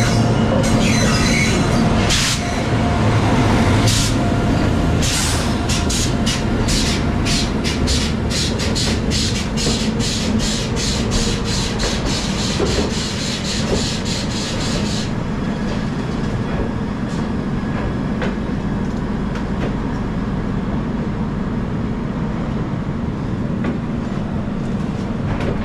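A train passing on the adjacent track with a steady rumble. From about five seconds in until about fifteen seconds there is a fast, regular clickety-clack of its wheels over the rail joints, about three clacks a second, after which the rumble carries on more softly.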